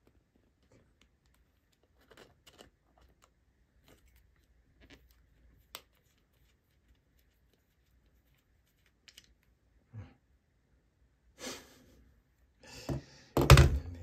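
Faint scattered clicks and scrapes of needle-nose pliers and a screwdriver working a small screw in a plastic hair dryer handle. A few thumps follow late on, the loudest just before the end as the dryer is set down on a wooden table.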